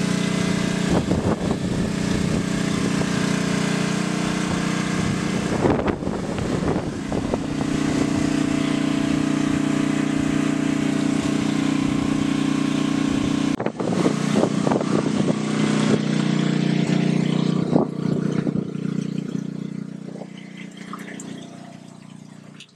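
Portable generator engine running at a steady speed, a constant low hum, under the hiss of wind and driving rain with gusts buffeting the microphone. The sound changes abruptly about two-thirds of the way through and fades near the end.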